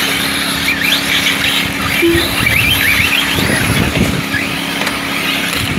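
Electric RC buggies racing, their motors giving high whines that rise and fall as they accelerate and brake, over a steady low hum. A short beep sounds about two seconds in.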